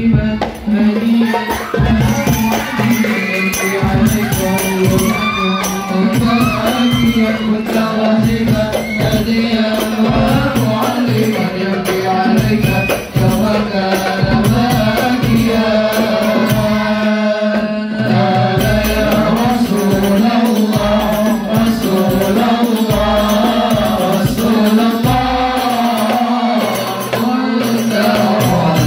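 A male voice sings sholawat, an Islamic devotional song, in long melismatic lines. Hadroh percussion accompanies it throughout: rebana frame drums and hand drums keep a steady beat.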